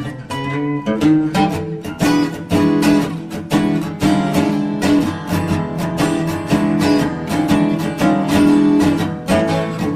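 Background music: acoustic guitar plucking and strumming a steady pattern of notes.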